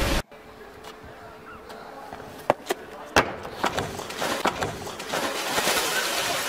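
A brief burst of rushing water that cuts off, then a few sharp thumps and knocks on a wooden dock, followed near the end by a splash as a person goes into the water.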